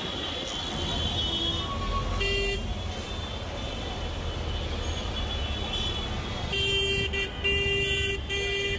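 Busy street traffic running steadily, with vehicle horns honking: one short honk about two seconds in, then a run of several short toots near the end.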